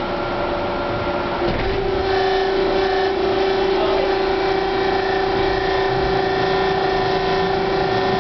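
Hawker-Siddeley H5 subway car pulling out of a station. A steady electric whine from its propulsion gear sets in about a second and a half in, over the rumble of the car.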